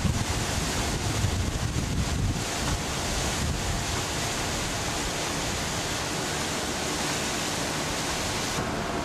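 Wind buffeting the camcorder microphone over a steady outdoor rushing hiss, gustiest in the first three seconds. The hiss thins abruptly near the end.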